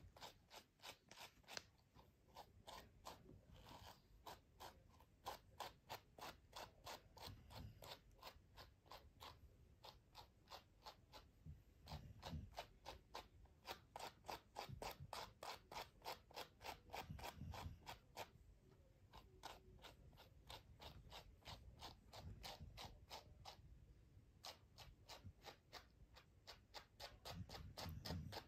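A cocker spaniel snoring softly, one slow low breath about every five seconds, under a faint, rapid run of clicking and scratching strokes, about four a second with short pauses, from grooming work on its fur.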